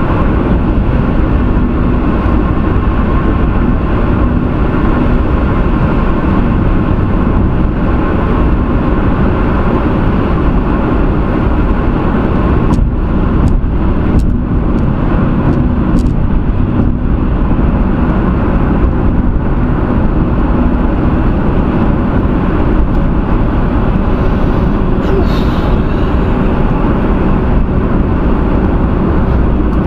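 Steady road and tyre noise with engine hum, heard from inside a car's cabin while cruising at highway speed, with a few faint clicks about halfway through.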